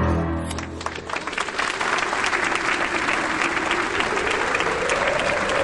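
Theatre audience applauding: many hands clapping start about half a second in and settle into steady applause, while the last notes of bowed string music fade out in the first second.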